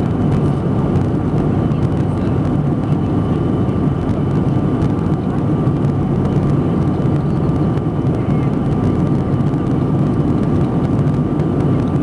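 Airbus A321 jet engines at take-off power heard from inside the cabin: a loud, steady rumble with a thin steady whine above it.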